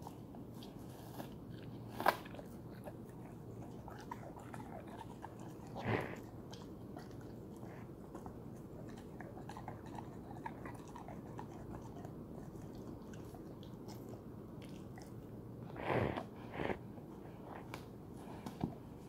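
Bernese mountain dog chewing and biting a tennis ball: soft intermittent gnawing clicks, with a few louder sharp bites scattered through.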